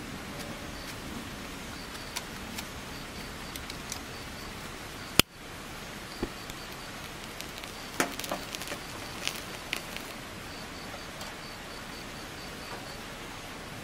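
Steady rushing of a mountain stream, with an insect chirping in a fast, even pulse. A sharp click about five seconds in, then a few light clinks of metal cooking gear between about eight and ten seconds in.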